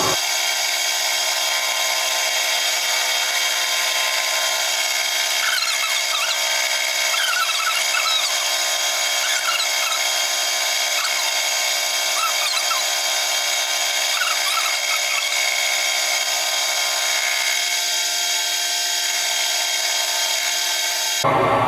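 Nichols milling machine running steadily as an end mill takes a facing pass across brazed-in silicone bronze, the table fed by hand crank. The cut gives a steady machining noise with short, wavering squeaks that come and go through the middle.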